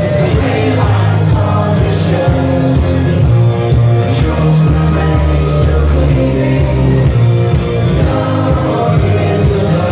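Loud pop music with singing over a nightclub sound system, with strong bass and a steady beat.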